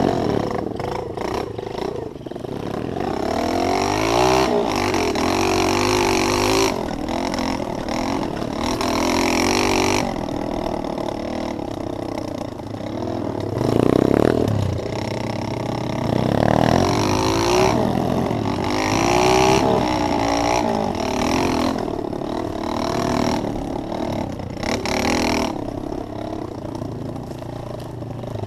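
Pit bike engine being ridden on a bumpy trail, revving up and down over and over as the throttle is opened and closed, heard from on the bike itself.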